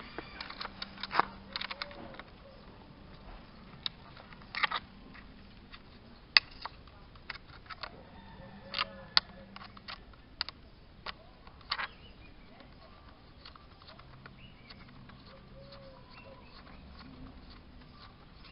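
Light, irregular wooden clicks and knocks as the parts of a hand-built wooden model ladder are handled and worked by hand. They fall thickly in the first twelve seconds and thin out after that.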